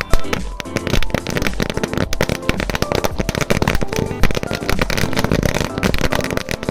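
A Moorthy Fireworks 1000-wala lar (a long string of small firecrackers) going off in a rapid, irregular chain of sharp bangs. The bangs come many to the second with no break, and a few are louder than the rest.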